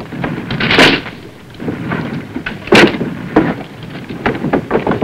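Battle sound effects on an old film soundtrack: two loud bangs about two seconds apart, each dying away briefly, with smaller knocks and crackles between and after them.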